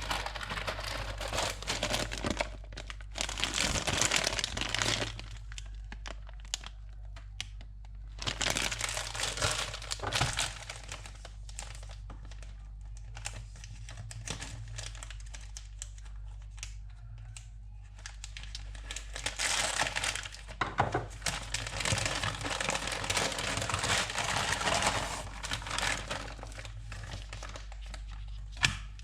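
Crinkling and rustling of something like plastic packaging being handled, in irregular bursts, over a steady low hum.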